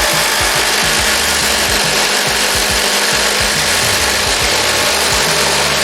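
Two cordless impact drivers, a HART brushless and a DeWALT 20V Max XR DCF887, hammering continuously under load as they drive fasteners side by side.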